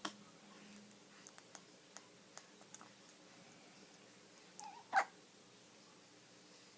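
Newborn baby hiccuping: a short squeaky hic right at the start and a louder one about five seconds in, with a few faint ticks between them.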